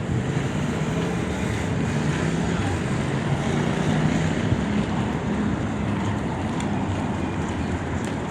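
Steady street traffic on a busy avenue: engines humming low under a continuous rushing noise.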